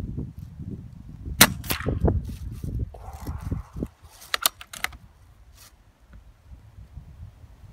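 A BSA R10 MK2 .177 pre-charged air rifle fires one shot about a second and a half in. A second sharp smack follows a moment later as the pellet strikes the target. About three to five seconds in, the side-lever is worked and a fresh pellet loaded, giving a quick run of metallic clicks, with wind rumbling on the microphone early on.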